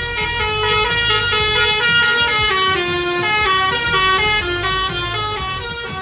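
Telolet-style bus horn from a remote-control toy bus: several horn tones sounding together in a quick stepped melody, the notes changing a few times a second.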